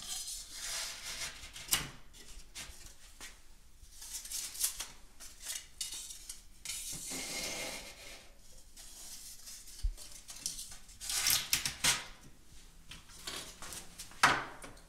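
Handling sounds of kitchen cabinet installation work: light clicks, knocks and scraping, with a sharper knock about two seconds in, a cluster of knocks around eleven seconds and another near the end.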